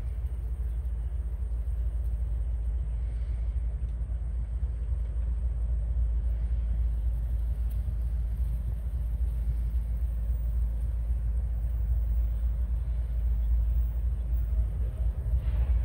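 Low, steady rumble of a pair of approaching GE diesel locomotives, an ES40DC leading a CM44AC, running light, slowly growing louder as they draw near.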